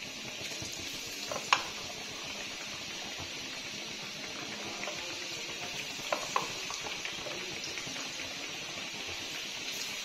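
Besan-battered potato slices deep-frying in hot oil in a kadhai: a steady sizzle, with a few light clicks about a second and a half in and again around six seconds.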